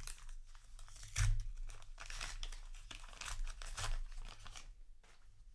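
Foil trading-card booster pack wrapper crinkling and rustling as it is handled, with a louder crackle about a second in; the rustling dies away near the end.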